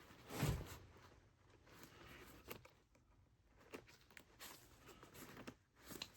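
Faint handling of a metal jacket zipper as the newly fitted slider is tried: a soft thump about half a second in, then scattered small clicks and rustles of the slider and teeth.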